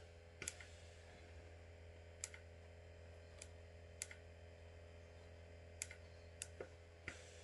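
Near silence: steady low room hum with a handful of faint, sharp clicks at irregular intervals.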